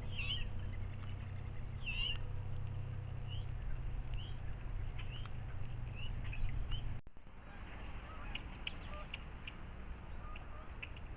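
Wild birds at a feeder calling and chirping, with many short high calls scattered throughout, over a steady low rumble that cuts off about seven seconds in.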